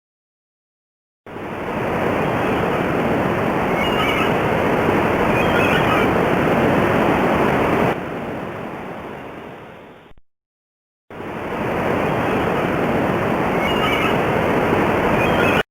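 A loud, steady rushing noise like surf or wind, with a few faint high bird calls in it. It plays twice, fading out and stopping about ten seconds in, then starting again a second later.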